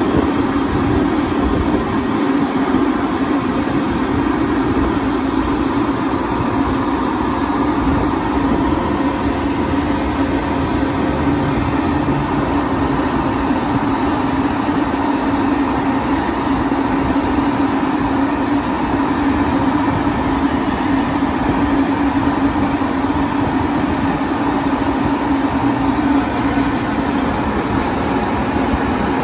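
Car wash dryer blowers on the exit gantry running, a steady rush of air with a constant low hum that does not change.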